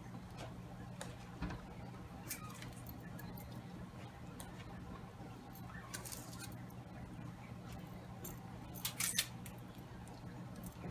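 Light taps and clinks of red bell pepper pieces being set by hand into a pan of potatoes, carrots and water, loudest in a short cluster near the end, over a steady low hum.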